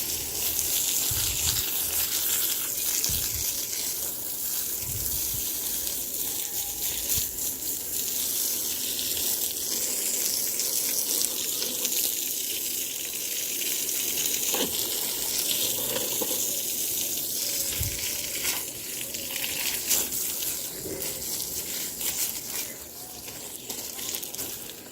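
Steady rushing hiss of water running out while plants are watered.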